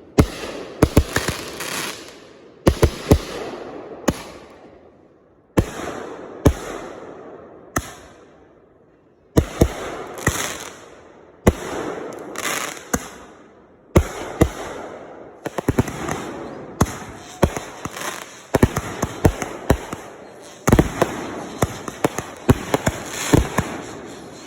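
Fireworks going off one after another: sharp bangs at irregular intervals, each followed by crackling that fades over a second or two, with a couple of short lulls between volleys.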